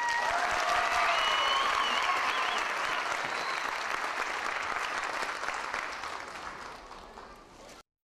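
Audience applauding and cheering, with high whoops rising above the clapping in the first few seconds. The applause slowly dies away and cuts off abruptly just before the end.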